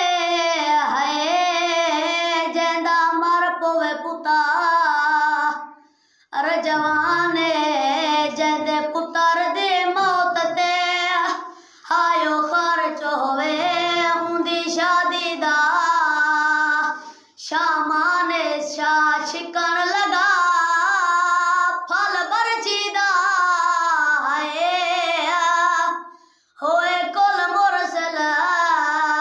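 A boy singing a Shia lament (noha) unaccompanied. His voice moves in long melodic phrases and breaks off briefly for breath four times.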